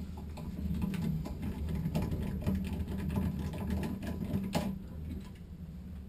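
A screwdriver turning a Phillips screw out of a shower valve handle: a run of small, irregular metal clicks and ticks, with a sharper click about four and a half seconds in.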